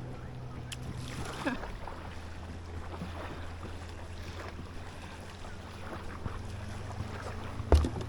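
Wind buffeting the microphone over a steady low hum, with a single thump near the end.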